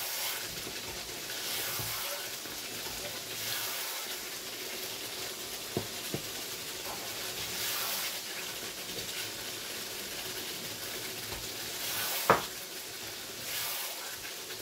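Chicken and spice masala sizzling in a pan while a spatula stirs it, scraping through the pan in strokes about every two seconds. A few sharp knocks of the spatula against the pan, two close together around six seconds in and the loudest about twelve seconds in.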